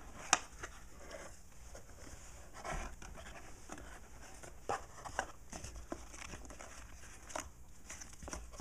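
Cardboard box being opened and a paper quick-guide leaflet handled inside it: faint scattered taps, scrapes and paper rustles, with one sharp tap just after the start.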